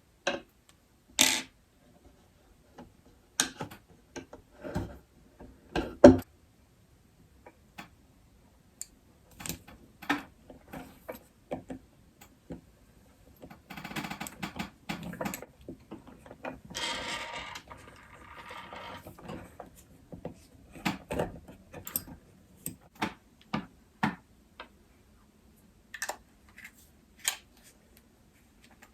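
Hands handling plastic and metal hardware during assembly: scattered clicks and knocks, the loudest about six seconds in, with a longer, noisier stretch of handling in the middle.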